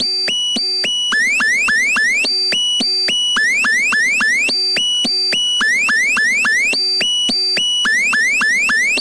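Synthesized emergency-alert (EAS) attention tone: a repeating cycle of three short steady beeps followed by a few quick rising chirps, about every two and a half seconds. It starts and stops abruptly.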